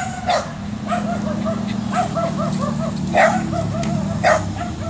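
Small dog yipping in quick runs of short, high-pitched yelps, with a few louder barks mixed in, excited at another dog across the fence.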